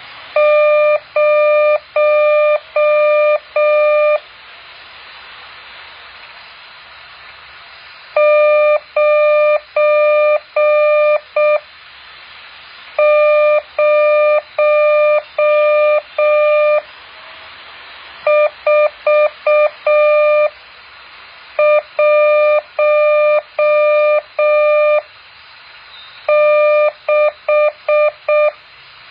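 Morse code practice signal: a clean single-pitched beep keyed on and off in groups. Most groups are runs of long dashes; one group about two-thirds of the way through has quicker, shorter elements. Pauses of a few seconds separate the groups, with a faint steady hiss behind.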